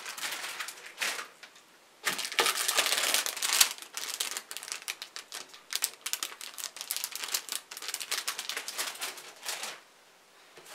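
Clear plastic bags holding model kit runners crinkling and crackling as they are handled, a dense run of crackles loudest a couple of seconds in, thinning out to quiet near the end.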